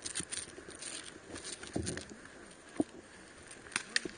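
Footsteps on grass and the rustle of gear, broken by a few sharp clicks, the sharpest about three seconds in and twice near the end.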